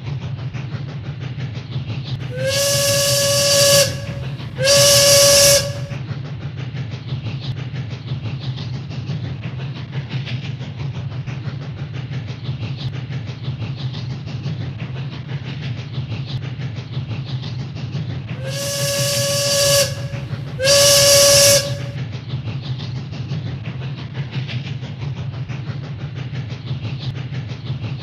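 Train sound effect: a steady low rumble of a running train, with a train whistle blowing two blasts, the first longer than the second. The pair of blasts comes twice, about sixteen seconds apart.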